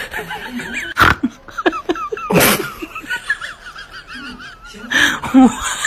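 Laughter, broken by loud sharp hits about a second in, near two and a half seconds, and about five seconds in.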